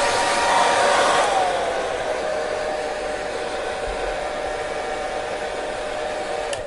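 Hair dryer blowing steadily with a motor whine. About a second in, the whine slides lower in pitch and the blowing gets a little quieter. Near the end a click is heard and the whine begins to fall as the dryer is switched off.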